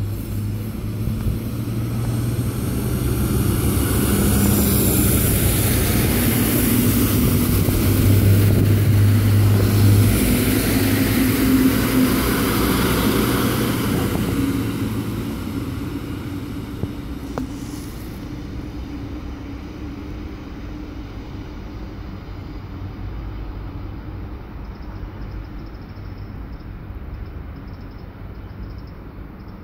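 Alstom Coradia LINT diesel multiple unit passing close by: a steady low diesel drone with wheel and rail noise that grows to its loudest about ten seconds in, then fades as the train draws away.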